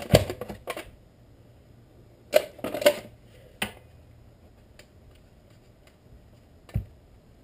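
Clicks and knocks of a chainsaw being handled and turned over on a wooden workbench: a flurry at the start, a loud cluster of knocks about two and a half seconds in, one more click, and a single thump near the end.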